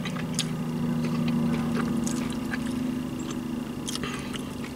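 A steady low engine hum that swells a little in the middle and eases off, with scattered small clicks of chewing and handling food on top.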